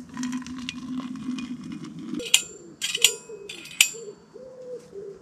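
Hot water poured from a small metal camping kettle into a steel vacuum flask, a steady hiss for about two seconds, followed by three sharp ringing metal clinks. Near the end a pigeon starts cooing.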